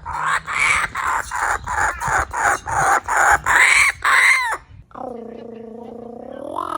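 Laughing kookaburra laughing: a rapid run of harsh, cackling notes, about three a second, climbing in pitch toward the end, which stops about four and a half seconds in. A lower, steady drawn-out call then begins.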